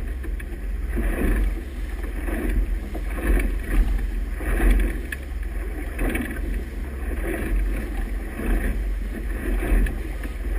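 Race committee motorboat under way: a steady low engine drone under rushing, splashing water from the hull and wake, with wind buffeting the microphone. The water noise swells and eases about once a second as the boat works through the chop.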